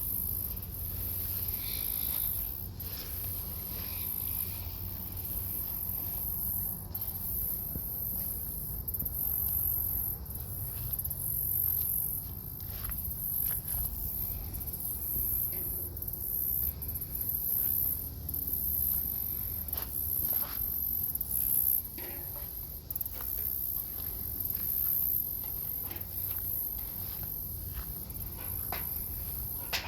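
Outdoor garden ambience: a high, steady chirring of insects that swells and dips every second or two, over a low rumble, with scattered light rustles or steps.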